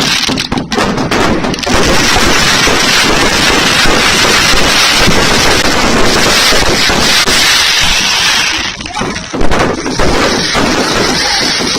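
Fireworks and firecrackers going off in a dense, continuous barrage of overlapping bangs and crackles, with brief lulls about half a second in and again around nine seconds.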